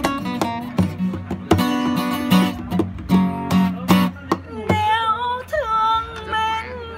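Steel-string acoustic guitar strummed in a steady rhythm, chords ringing between strokes. About two-thirds of the way in the strumming stops and a voice holds one long, wavering note.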